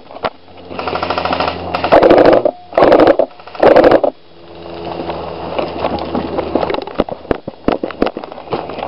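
Airsoft guns firing: a rapid burst of shots about a second in, then scattered single shots in the second half. Three loud, noisy blasts of rustling or buffeting, each about half a second long, come in the middle.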